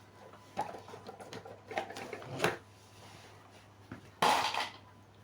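Light clicks and scrapes of an LED bulb and a tester screwdriver being handled while the bulb's circuit board is pried out, with a louder scrape lasting about half a second a little past four seconds in.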